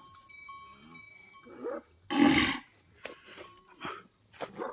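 A bull calling: one loud, rough call about two seconds in, followed by a few shorter, fainter sounds.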